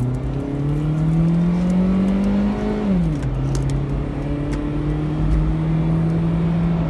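Pontiac Vibe's four-cylinder engine accelerating hard through the gears, heard from inside the cabin: the engine note climbs, drops at a gear shift about three seconds in, then climbs again and drops at another shift near the end.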